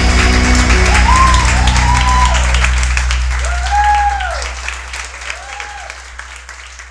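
Audience applauding and cheering, with several long rising-and-falling whoops over the clapping as the music's last notes end about a second in. The applause then fades away.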